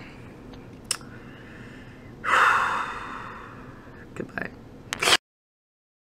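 A person's loud, noisy breath, a snort or heavy sigh, about two seconds in, fading over a second or so, with a few short clicks around it; the sound cuts off abruptly about five seconds in.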